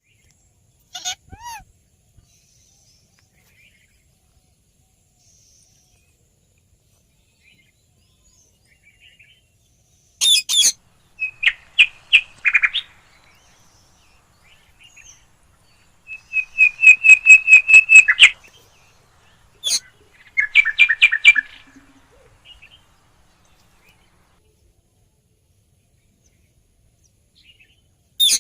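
Green ringneck parrots (rose-ringed parakeets) calling in scattered bursts. A short call comes near the start and a harsh call about ten seconds in, followed by quick runs of sharp repeated notes, about seven a second, with long quiet gaps between.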